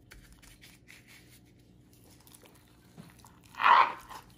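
Faint rubbing and rustling of a gloved hand working dry rub into a raw beef rib roast on a plastic cutting board, then a short, louder rustling scrape about three and a half seconds in as the roast is lifted and turned over.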